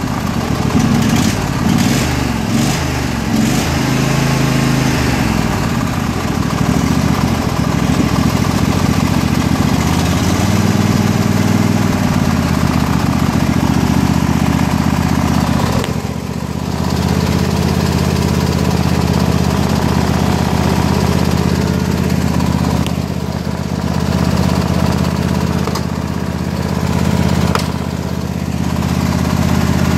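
A Statesman riding mower's 20 hp Briggs & Stratton V-twin engine running just after a choked start-up, having sat unused for a while. It runs unevenly with its pitch shifting through the first half, then settles into a steadier run from about halfway.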